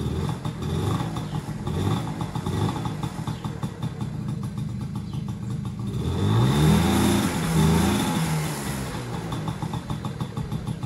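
Honda Motocompo's small two-stroke engine running just after being kickstarted, idling unevenly. About six seconds in it is revved twice, the pitch rising and falling each time, then it settles back to idle.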